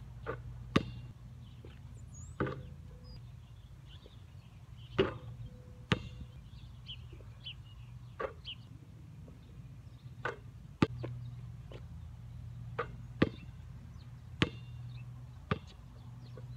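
A basketball being shot at an outdoor hoop: about a dozen sharp, irregularly spaced impacts as the ball strikes the rim and backboard and bounces on the pavement.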